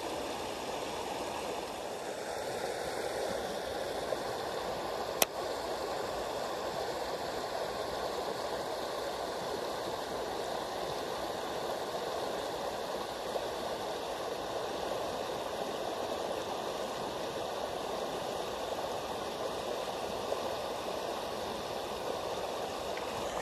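Creek water running steadily through a shallow ford, an even rushing babble, with a single sharp click about five seconds in.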